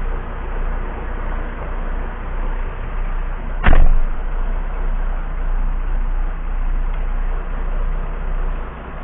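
Volvo FMX truck's diesel engine idling with a steady low rumble, heard inside the cab. About three and a half seconds in, the cab door slams shut with a single loud bang.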